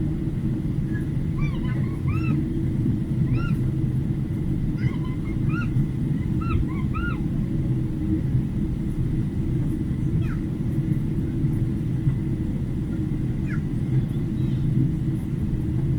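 Steady low rumble of an airliner cabin during the landing approach. Short, high, arched squeaks or mews come in clusters over it, mostly in the first half and a few near the end.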